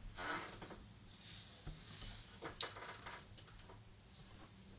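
Colored pencils being handled and picked out: short scratchy rustles and light knocks, with one sharp click about two and a half seconds in.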